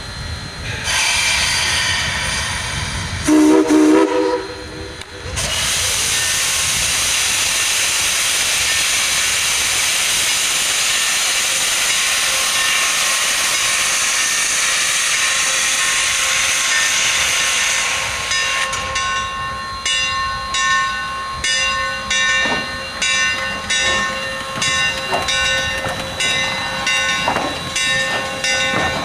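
4-6-0 steam locomotive No. 2248 gives a short steam whistle blast about three seconds in. Then its cylinder cocks blow off steam in a long, loud hiss. From about two-thirds of the way through, slow, even exhaust chuffs take over as it starts to move off.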